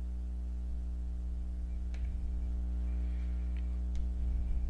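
Steady electrical mains hum with a ladder of evenly spaced overtones. A few faint clicks come around two seconds and four seconds in.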